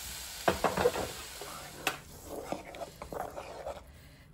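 Hot fried mixture sizzling in a steel pot of thick soup, the hiss dying away about halfway through. There are a few sharp knocks of utensils against the pot, then a wooden spoon stirring the thick mixture.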